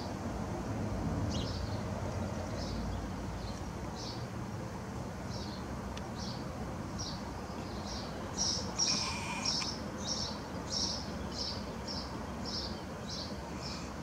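House sparrow chirping: short, high single chirps repeated about once a second, then faster, about two a second and louder, from about eight seconds in, over a steady low background rumble.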